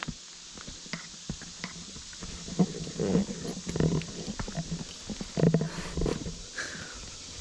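A hiker's heavy, hoarse breathing close to the microphone while climbing a steep trail, in two clusters of hard puffs partway through, with light footsteps on the dirt path.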